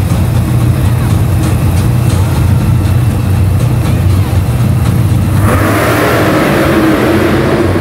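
Monster truck engines running with a heavy low rumble, then revving up hard about five and a half seconds in as the trucks start to drive.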